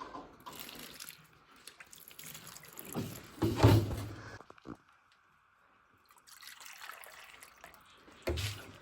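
Water poured from a plastic gallon jug into rabbit water cups, splashing and trickling in two spells with a short pause between. The loudest splash comes about three and a half seconds in.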